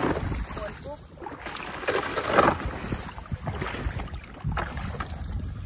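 Rubber waders wading and a bucket sloshing in shallow, icy water, the splashing coming in surges every couple of seconds, over a low rumble of wind on the microphone.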